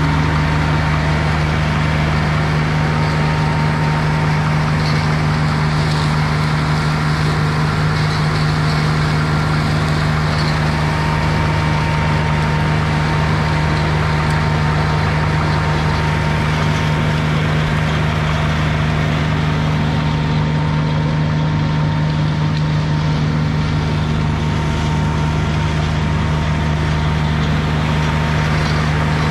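Irus Deltrak 2.5 tracked slope mower running steadily, its engine and front mulcher working through tall grass. A steady low hum with a fainter even whine above it, holding constant throughout.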